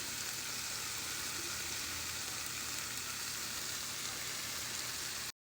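Food sizzling steadily in a hot pan, a constant frying hiss that cuts off suddenly near the end.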